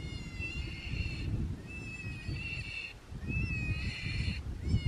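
Electronic predator caller playing a high, wavering animal distress cry over and over, about four cries of roughly a second each with short gaps, to call in coyotes.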